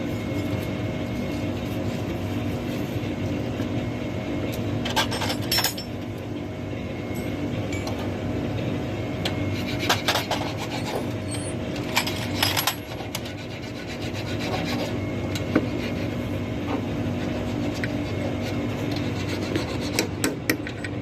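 Hand-tool work on metal parts: rubbing and scraping with occasional sharp clicks and knocks, over a steady mechanical hum.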